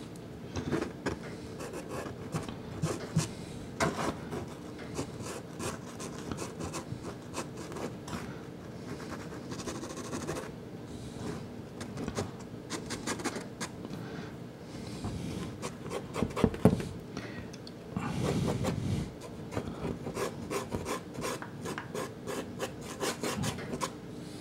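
Soft pastel stick scraping across Sennelier La Carte pastel card in many short, quick strokes in clusters, with one longer continuous stroke about eighteen seconds in.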